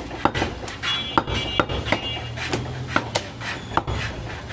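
A butcher's knife knocking and chopping on a wooden log block while goat meat is cut, in about a dozen irregular sharp knocks. A brief steady high tone sounds in the background from about one to two seconds in.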